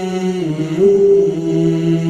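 Several voices singing a cappella in harmony, holding long notes that shift pitch about half a second in. The track plays through a narrow EQ band that is being adjusted to find a booming, harsh resonance to cut.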